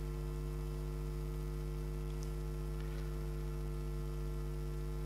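Steady electrical mains hum: a low, unchanging drone with a ladder of higher overtones above it.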